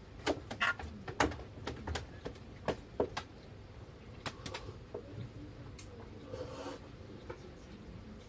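Pet turtle making short, sharp 'gak' clicks, a quick run of them in the first three seconds, then a few scattered ones and a brief rasp about six seconds in. Turtles have no vocal cords; the sound comes from air vibrating in the nose and windpipe as it breathes.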